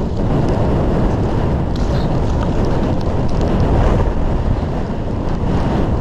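Wind rushing over a skier's camera microphone during a fast run down a slope of fresh snow: a loud, steady rumbling noise, with the skis swishing through powder underneath.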